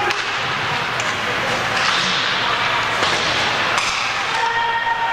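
Ice hockey in play: a steady din of rink and crowd noise with voices, broken by several sharp clacks of stick and puck. Near the end a held pitched call or shout rises above it.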